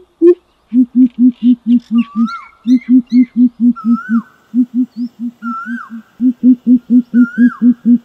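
Greater coucal calling: runs of deep, even hoots at about four a second, four runs with short breaks between them. A higher whistled note that rises and then dips sounds about every two seconds over the hoots.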